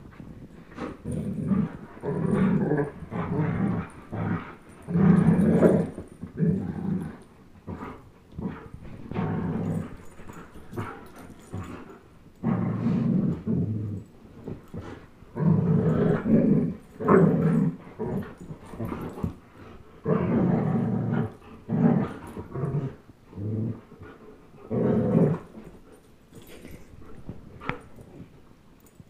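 A young German Shepherd and a young Old English Sheepdog growling in play while tugging on a toy. The growls come in repeated bursts of about a second each, with short pauses between them.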